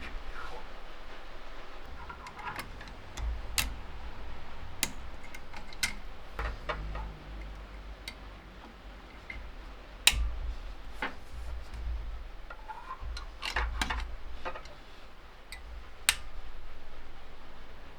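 Irregular clicks and light knocks of small tin and aluminium parts of a Felix M mechanical calculator being handled and worked on, over a low rumble.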